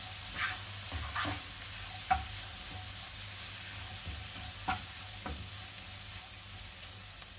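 Chopped onions, ginger and garlic sizzling in butter in a nonstick frying pan while a spatula stirs them, with about five sharp scrapes of the spatula against the pan.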